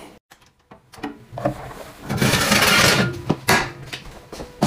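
Metal oven tray being handled and pulled out of the oven: a few clattering knocks, then a scraping rush about two seconds in, and a sharp knock near the end.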